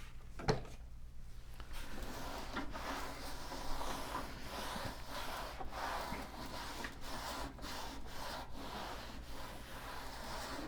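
Damp cloth rubbing over the side of a computer case, wiping off grime with repeated back-and-forth strokes.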